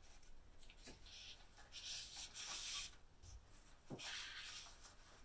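Faint rustling and rubbing of printer-paper pattern sheets as hands slide and line them up on a table, with a light tap about four seconds in.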